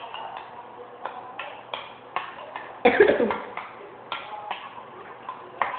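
Utensil stirring a thick slime mixture of glue, detergent and Tenys Pé in a bowl, with irregular clicks and scrapes against the bowl. About three seconds in there is one short burst of a person's voice, like a cough.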